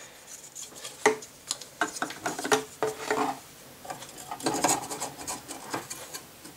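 Plastic case fan frame clicking and scraping against the metal fins of a tower CPU heatsink as it is handled into place: irregular short clicks and rubs, the sharpest about a second in.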